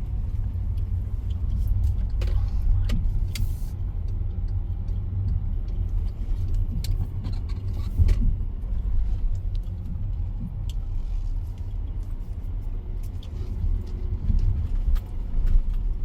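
Car driving, heard from inside the cabin: a steady low road and engine rumble, with a few scattered clicks and knocks.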